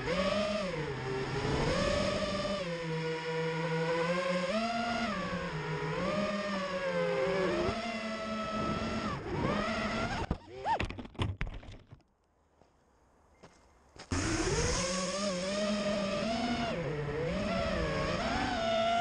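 5-inch FPV miniquad's brushless motors and propellers whining, the pitch swinging up and down with the throttle. About ten seconds in, a few sharp knocks as the quad crashes and the motors stop, then near silence for about two seconds before the motor whine starts again.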